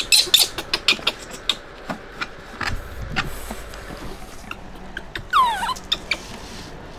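Plastic laundry basket and water balloons knocking and rustling as young macaques climb about in it, a quick run of clicks in the first two seconds. About five seconds in, one of the monkeys gives a short squeal that falls in pitch.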